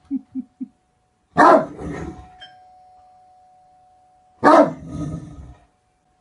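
Dog barking: four quick low woofs, then two loud, deep barks about three seconds apart. A steady chime-like ringing tone carries on under and after the barks.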